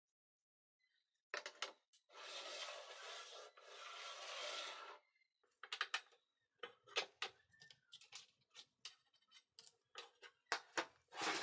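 A short length of steel rectangular tube sliding inside a steel channel: metal scraping on metal for about three seconds, then a run of light metal knocks and taps as it is shifted and set in place, with another brief scrape near the end.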